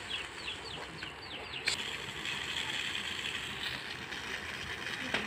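Grain being winnowed: poured from a raised basket in front of an electric fan, streaming down and pattering onto a plastic tarp. A rapid run of short, high, falling chicken cheeps comes in the first second and a half, and there is one sharp click soon after.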